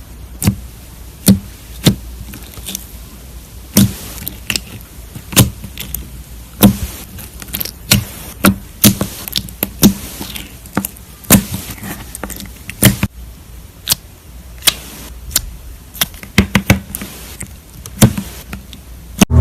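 Slime being pressed and squeezed by hand, giving sharp, irregular clicks and pops, one to three a second, with a quick run of them near the end.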